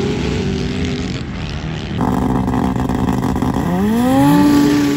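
Off-road vehicle engines at full throttle on sand. A sand rail's engine runs steadily at high revs; then a side-by-side UTV's engine revs up sharply about three and a half seconds in and holds there as its tyres spin.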